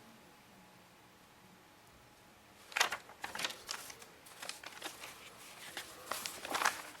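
Handling noise: quiet at first, then from about three seconds in an irregular run of rustles and light clicks, as of things being picked up and moved by hand.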